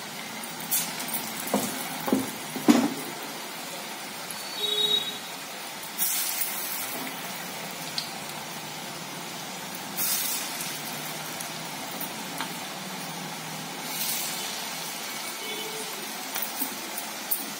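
Garelu (lentil-dough fritters) deep-frying in hot oil in a steel kadai: a steady sizzle with scattered sharp pops, the loudest about three seconds in.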